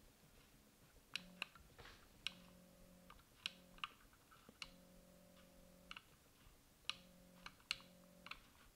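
Small go-to motors on an EQ5 telescope mount humming in about six short runs, the longest over a second, as they drive the mount. Sharp clicks from the hand-controller buttons come between and at the start of the runs.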